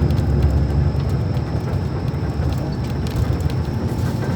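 Diesel engine of an Iveco-chassis Mascarello Roma M4 bus running. Its low note eases off in the middle and picks up again near the end, over a faint steady high whine.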